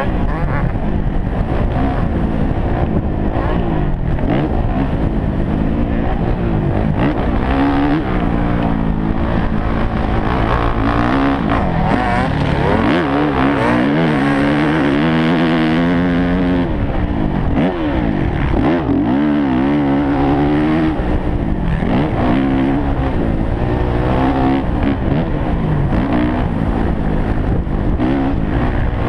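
Motocross dirt bike engine ridden hard, revving up and falling back again and again as the throttle is worked through corners and straights and the gears are shifted.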